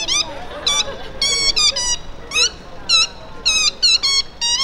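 A clown's high-pitched squeaker sounding a string of short squeaks in quick, uneven groups, some sliding down in pitch, like a comic voice or animal call. Crowd voices murmur faintly beneath.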